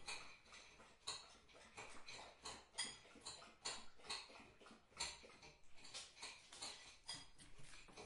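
Faint, irregular clicking and tapping from a dog, a few clicks each second.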